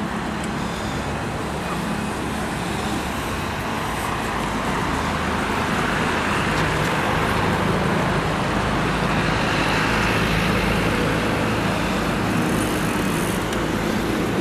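Steady road traffic noise from a busy multi-lane avenue: a continuous rush of passing cars and larger vehicles with a low engine hum, growing a little louder in the middle.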